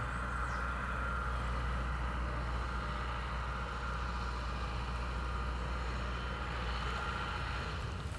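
A steady mechanical drone, like a motor or engine running, with a low rumble beneath it and a higher hum that swells slightly twice.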